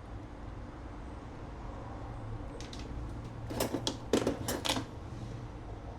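Several light clicks and knocks in quick succession from about two and a half to five seconds in, as utensils and a container are handled while preparing soap, over a low steady hum.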